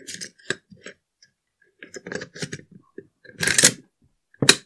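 Metal clicks and scrapes of an Osprey piston-conversion bolt carrier being slid into an AR-15's upper receiver, with a longer sliding rasp a little past three seconds and a sharp metallic click near the end.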